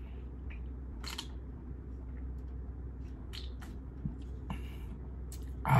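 A man drinking from an aluminium can: a few faint short swallows and breaths over a steady low hum, with a louder breathy sound near the end.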